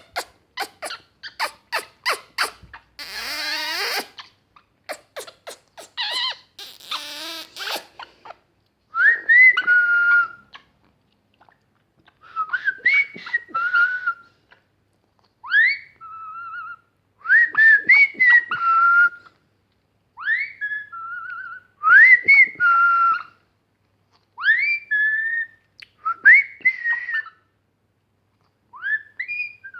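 A run of clicks and short noisy sounds, then, from about nine seconds in, a whistled phrase repeated about nine times: a quick upward swoop followed by a held lower note.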